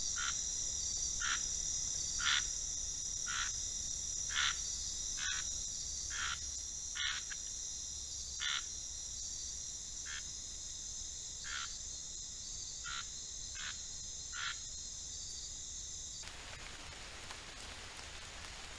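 Night chorus of insects, a steady high trill, with a frog giving short calls about once a second. About 16 s in, the chorus stops abruptly and an even hiss remains.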